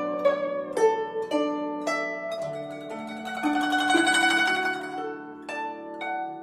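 Background music: a plucked string instrument playing a slow melody, one note at a time, each note ringing and dying away.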